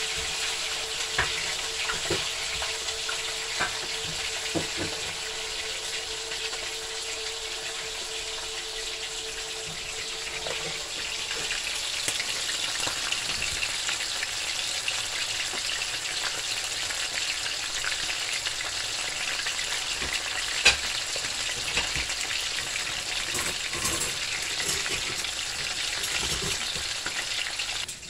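Whole parrot fish frying in hot oil in a stainless steel pan: a steady sizzle with scattered crackles and pops, one louder pop about twenty seconds in.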